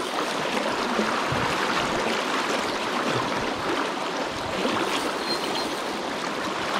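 Shallow, fast river current running over a gravel and rock bed: a steady rush of flowing water.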